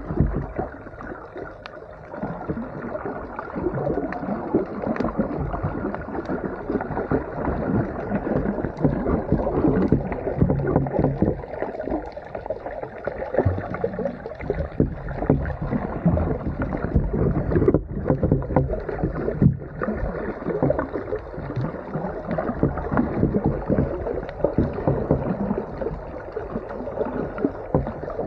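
Muffled water noise, an uneven rushing and sloshing, picked up by an underwater camera as it moves through the water.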